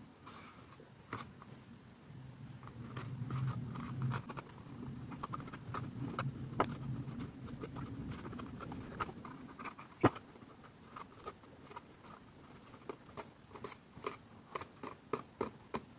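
Fingertips handling and pressing cardstock as the glued side seam of a paper bag is pressed into place: scattered small clicks, taps and scratchy rubs, with a low rubbing rumble from about two to nine seconds in.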